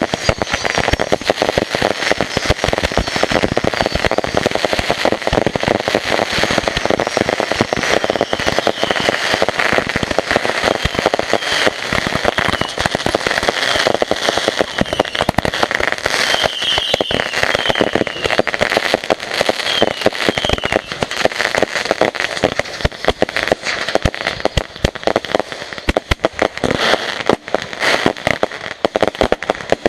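A long string of firecrackers going off in a rapid, continuous crackle of bangs, with a few short whistles about halfway through.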